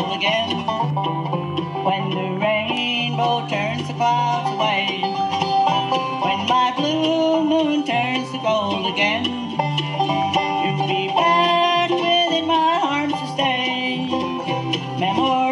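A bluegrass band playing live: banjo picking over strummed acoustic guitars and a plucked upright bass.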